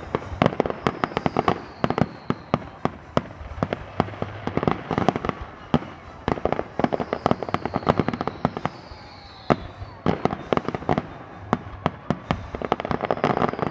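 Fireworks grand finale: a dense, irregular barrage of aerial shell bangs and crackling, with a few high whistles falling in pitch.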